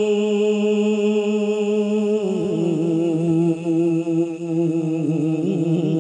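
A man's solo voice singing a naat, holding one long note, then dropping to a lower, wavering note about two seconds in and stepping down again at the end.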